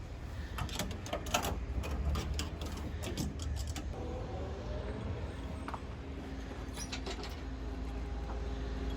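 Fishing gear being loaded into a boat: a run of knocks and clinks over the first few seconds and a few more near the end, over a low steady rumble.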